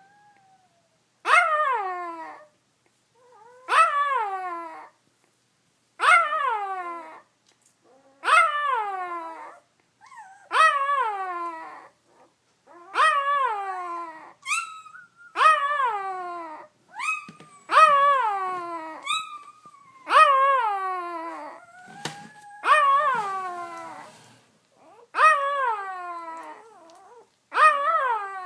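Newborn Great Dane puppy crying: a high whining cry that falls in pitch, repeated about a dozen times, one every two to two and a half seconds, with fainter squeaks between.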